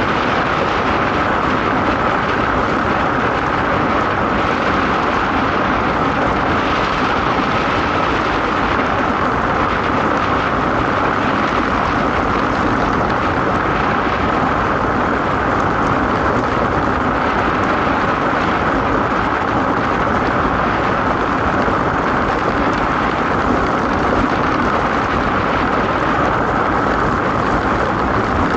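A DN iceboat sailing fast: a steady, loud rushing hiss of its steel runners sliding over the ice.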